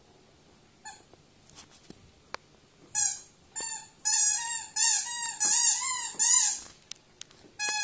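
Yellow rubber squeaky dog toy squeaking as a dog chews it: one short squeak about a second in, then a quick run of squeaks from about three seconds in, each with a slight rise and fall in pitch, and one more near the end.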